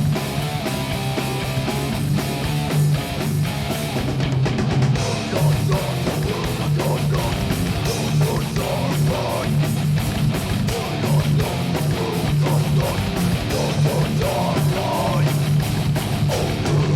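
Rock music with guitars and drums, a heavy, steady beat over a strong bass line.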